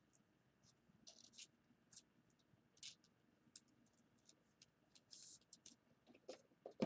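Near silence broken by scattered faint clicks and light rustles from small objects being handled, with a brief soft hiss about five seconds in.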